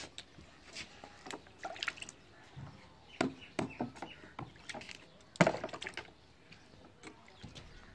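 Baby splashing and slapping the water in a plastic baby bathtub with his hands: irregular splashes, the loudest about five and a half seconds in.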